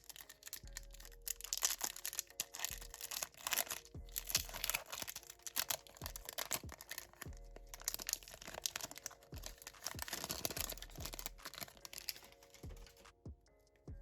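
Foil Pokémon booster pack wrappers crinkling and being torn open, a dense crackle with many sharp clicks that dies down near the end. Quiet background music underneath.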